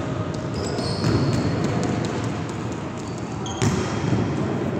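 Indoor volleyball play in a large, echoing gym. One sharp smack of the ball comes about three-quarters of the way through, with short squeaks of sneakers on the court floor.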